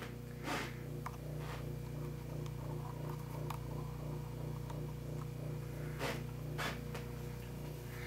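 Steady low hum with a few faint clicks, one about half a second in and two around six seconds in.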